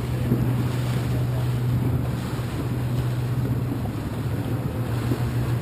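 Motor tender's engine running steadily under way, a low even hum, with wind buffeting the microphone and choppy water rushing past the hull.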